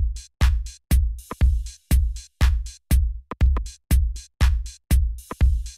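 Electronic intro music: a drum-machine beat with a heavy kick about twice a second, each hit stopping sharply, and a short cymbal-like hiss twice.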